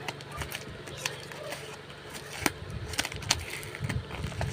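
Scattered clicks, taps and rustles of a cardboard parcel being handled and pried open.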